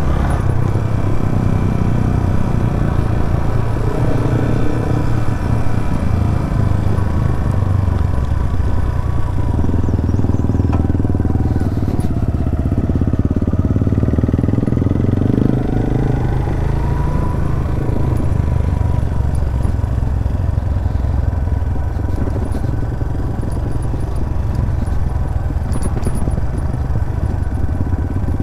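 Suzuki GS 150 SE's single-cylinder four-stroke engine running as the motorcycle is ridden, a steady, continuous engine note whose pitch shifts a little partway through.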